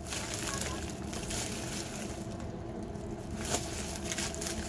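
Plastic bubble mailer being handled and worked open, giving a few faint crinkles and crackles over a steady low room hum.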